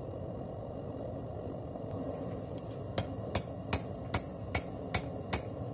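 Hammer striking a hot, freshly forge-welded damascus billet on a 55 lb anvil. About seven sharp, evenly spaced blows, roughly two and a half a second, begin about three seconds in. The billet is being squared and shaped after the weld, not drawn out.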